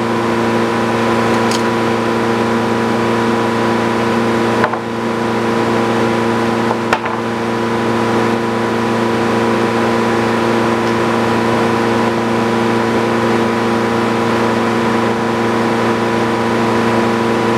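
Sawmill engine running at a steady speed, with two brief knocks a few seconds apart partway through.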